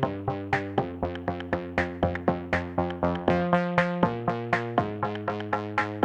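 Electronic background music: quick plucked synthesizer notes, about four a second, over held bass notes.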